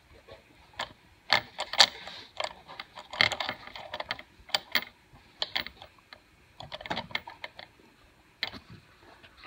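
Irregular light metallic clicks and clacks as the compressor wheel and shaft of a worn-out turbocharger from a 2007 Subaru Outback XT are pushed side to side and in and out by finger. The shaft has excessive play, the sign of a failed turbo.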